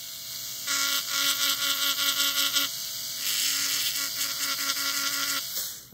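Dental lab micromotor handpiece whining as its bur grinds the acrylic of a denture, smoothing down a spot that bothered the patient. The grinding hiss comes in under a second in, eases briefly about three seconds in, and everything stops shortly before the end.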